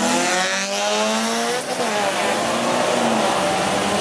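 Drag race car engine accelerating hard, its pitch climbing for about a second and a half, dropping at a gear change, then climbing again.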